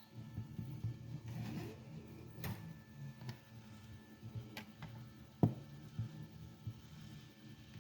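3D printer running quietly: a faint steady hum with scattered light clicks and ticks, the sharpest about five and a half seconds in.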